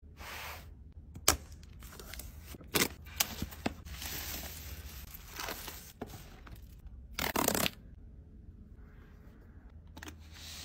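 Unboxing noises from plastic wrapping and a cardboard box being handled: sharp clicks and taps, crinkling, and a brief loud tear about seven seconds in.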